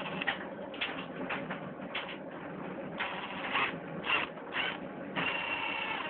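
ENERGER cordless drill-driver's motor running in a string of short bursts with a whine, then one longer run near the end; the motor is faulty.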